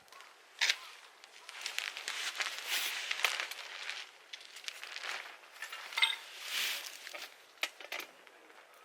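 Rustling and clattering of things being handled, with sharp clicks and a short ringing metallic clink about six seconds in.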